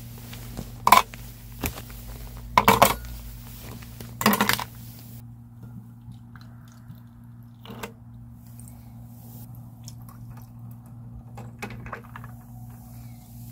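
Small hard objects being handled and set down: several sharp clicks and clinks, the loudest in the first five seconds and a few more later, over a steady low hum.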